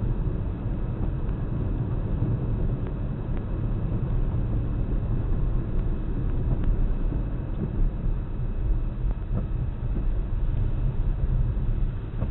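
Steady low rumble of a car on the move: engine and tyre-on-road noise as picked up by an in-car camera.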